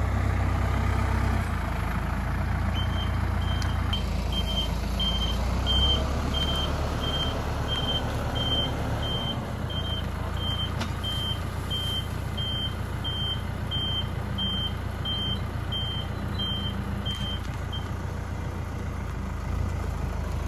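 Diesel engine of a loader running with a low rumble while its reversing alarm beeps steadily, about one and a half beeps a second; the beeping starts about three seconds in and stops a couple of seconds before the end.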